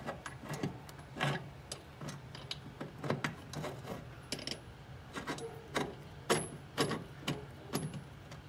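Steel pivot bolt of an Opel GT's upper control arm being worked out of its sleeve by hand: a dozen or so irregular light metallic clicks and clinks, some with a faint ring.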